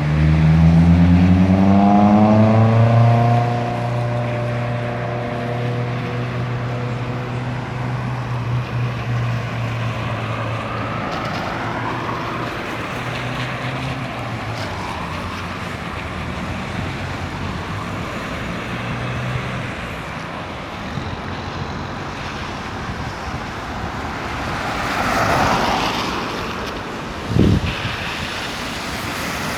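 Road traffic: a vehicle engine accelerating near the start, its pitch climbing and then levelling off, over steady traffic noise. Another vehicle passes near the end, followed by a short low thump.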